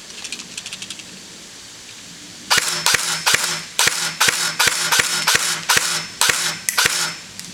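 JG M4 electric airsoft rifle fired on semi-auto: a quick string of sharp shots, about three a second, starting about two and a half seconds in.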